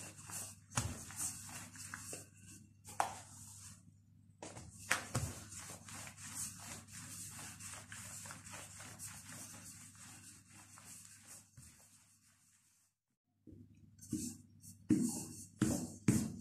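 Wooden rolling pin rolling a sheet of yeast dough thin on a silicone pastry mat: a rubbing, swishing sound, stroke after stroke, with occasional knocks of the pin. It breaks off briefly, then a few sharp taps follow near the end.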